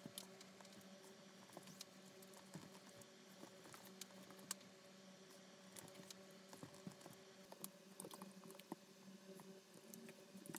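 Faint scattered clicks and rustles of hand-stitching a vinyl strap, needle and thread drawn through the stitching holes, over a steady low hum.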